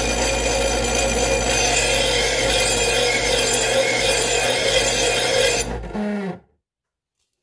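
Electric knife sharpener's motor running while a large steel kitchen knife is drawn through its grinding slot, a steady rasping grind over a motor hum. The grinding stops a little before six seconds in, and the motor winds down with a falling hum and cuts off to silence.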